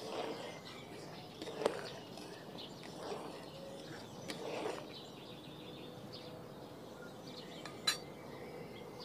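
A metal spatula stirs sugar syrup in a large aluminium wok, making soft sloshing swishes, with a few sharp clinks as it strikes the pan, the loudest near the end.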